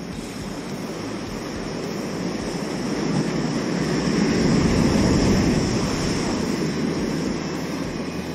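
Sea surf: the rush of a wave that swells to a peak about halfway through and then eases back.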